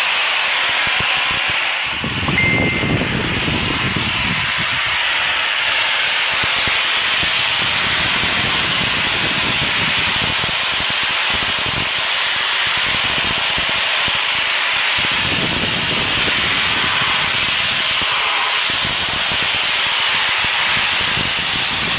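Pressure washer jet hissing steadily as it blasts grime off a pebble-finish stone wall.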